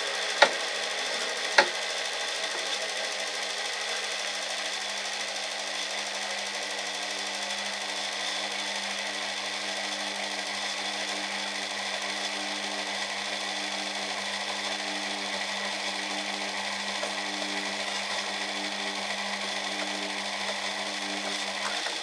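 Washing-machine motor driving a drill press at low speed through a speed-control board, a 7 mm twist drill cutting slowly into steel plate. The hum stays steady, with two short clicks near the start, and a second, wavering tone comes in after about five seconds.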